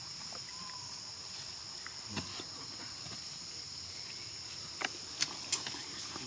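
Steady high-pitched chorus of insects trilling, with a few sharp clicks in the second half.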